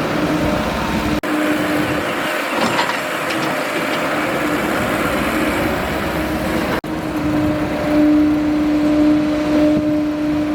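Excavator engine running steadily with a steady whine, which gets louder over the last few seconds. The sound drops out for an instant about a second in and again about seven seconds in.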